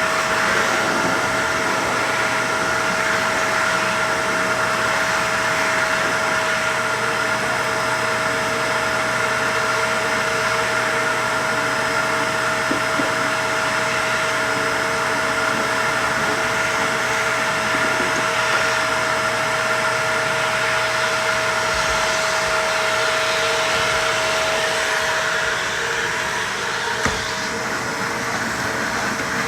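Vacuum cleaner running steadily, a constant motor whine over a rush of air, with a single light knock near the end.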